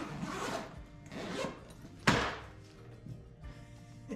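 Zipper of a fabric tool bag being pulled open in two long strokes, then a sharp thump about two seconds in as the bag's front panel falls open onto the bench; faint background music.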